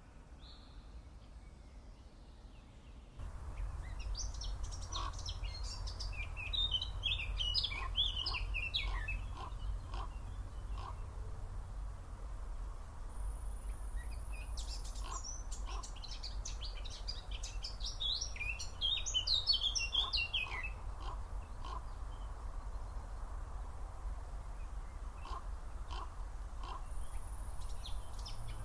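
A songbird singing outdoors: twittering notes, then a fast descending phrase about two and a half seconds long, heard twice, with scattered short chirps between. A steady low rumble runs underneath.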